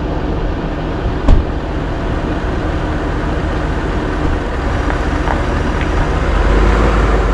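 John Deere 650K crawler dozer's diesel engine running steadily, heard from the cab, with a single sharp knock about a second in. The engine grows louder near the end.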